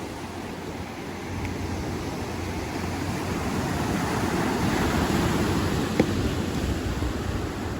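Ocean surf washing onto the beach, swelling to its loudest a little past halfway and then easing, with a single sharp click about six seconds in.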